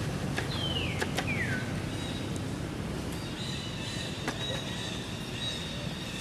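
Two short, high-pitched animal calls, each falling in pitch, come about a second in. They are followed by a long, steady, thin high whine. Low rumbling noise runs underneath.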